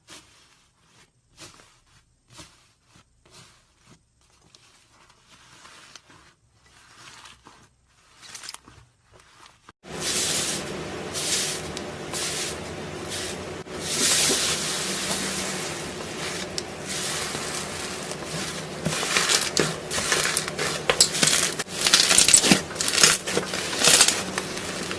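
Slime being squished and stretched by hand: faint scattered sticky clicks at first, then a much louder, continuous squishing from about ten seconds in.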